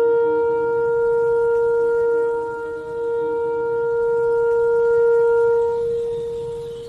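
A shofar sounding one long, steady held note that tapers off near the end, with a lower second tone under it that drops away about three seconds in.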